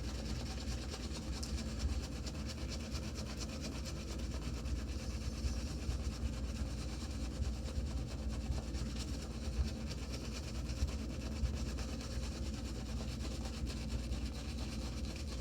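Shaving brush working soap lather, a steady wet scrubbing made of rapid bristle strokes.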